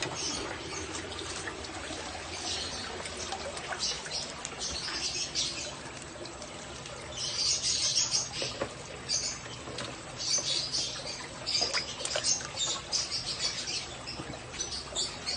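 Water splashing and dripping in irregular bursts as fish are scooped out of a garden pond with a hand net and tipped into a bucket.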